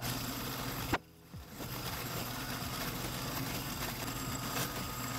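Drill press motor running steadily as a 1/16 inch bit drills stitching holes through a leather sheath. About a second in there is a sharp click and a short lull before it runs steady again.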